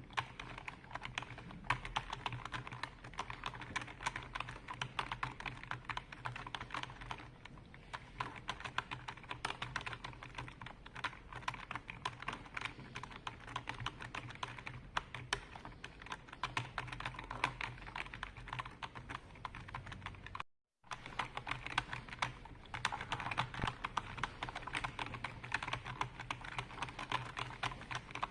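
Continuous typing on a computer keyboard: dense, irregular key clicks, with a brief gap of silence about twenty seconds in. A faint low steady hum runs underneath.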